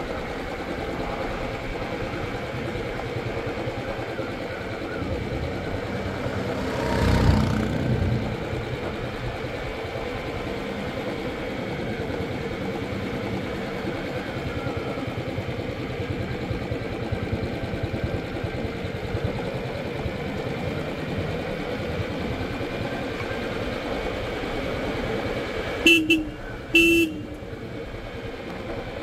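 Royal Enfield Classic 350's single-cylinder engine running steadily under way, with road and wind noise. There is a brief louder rush of noise about seven seconds in, and two short horn beeps near the end.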